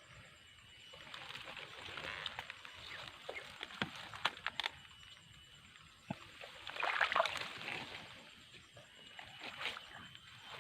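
Shallow swamp water splashing and sloshing, with scattered sharp clicks and a louder stretch of splashing about seven seconds in.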